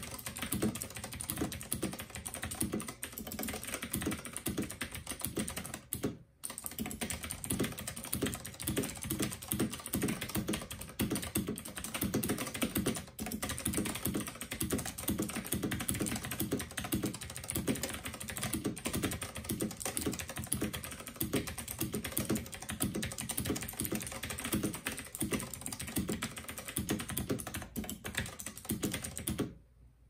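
Continuous fast typing on a Royal Kludge RK87 tenkeyless mechanical keyboard with blue clicky switches: a dense stream of key clicks, with a brief break about six seconds in. The typing stops just before the end.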